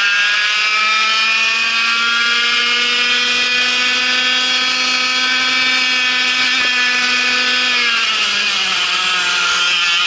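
Vortex MiniRok 60 cc two-stroke kart engine running close up at high revs, around 14,500 rpm, with a high buzzing tone that climbs slightly. About eight seconds in, the revs drop off and the pitch falls as the kart slows for a corner.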